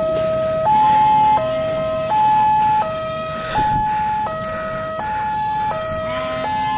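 Railway level-crossing warning alarm sounding from the loudspeaker on the crossing signal mast: an electronic two-tone signal switching between a higher and a lower tone about every 0.7 seconds, the warning that a train is approaching the crossing.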